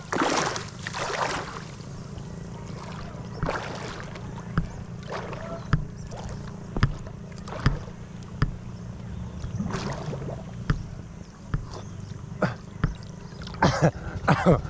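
Water splashing and churning as a swimmer goes under, settling after about a second and a half into a low steady rumble of water with scattered small ticks and drips. Near the end, a few louder splashes as he surfaces.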